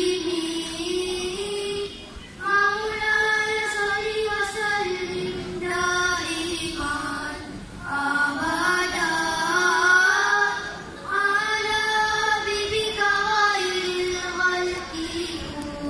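Young boys' nasyid group singing an Islamic devotional song in sung phrases, with short breaks between them.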